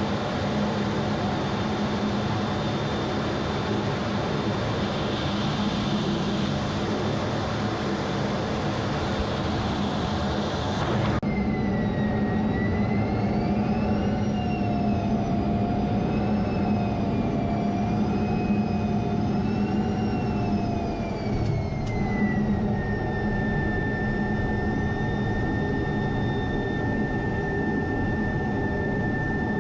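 Jet engine running steadily with a loud hum. About a third of the way in the sound changes abruptly, and a high turbine whine wavers up and down in pitch before holding steady near the end.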